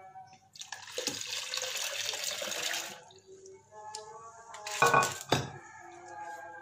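Milky almond and poppy-seed liquid poured from a clay bowl into a plastic jug, splashing for about two seconds. Then come two loud knocks about half a second apart. Background music plays quietly underneath.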